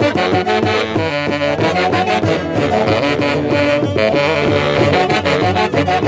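Andean orquesta típica from Huancayo playing a santiago tune: a saxophone section, baritone and alto, carries the melody over a steady beat.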